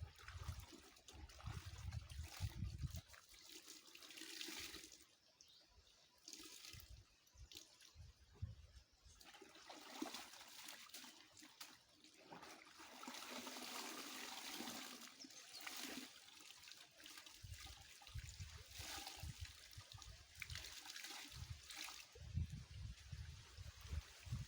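Stream water trickling and splashing in irregular swells as clothes are washed by hand in it, with dull low thumps at the start and again in the last third.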